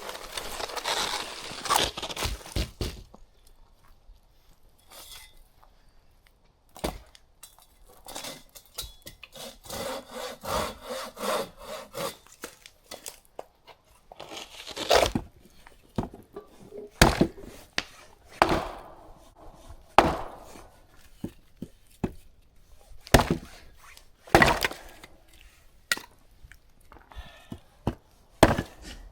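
Dead firewood being cut with a hand saw in stretches of strokes, with scattered sharp cracks and knocks of wood.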